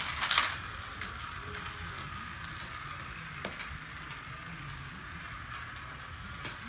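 Battery-powered Magic Tracks toy race car running along its flexible plastic track, a steady whirring hiss from its small motor and wheels. A brief clatter sounds right at the start.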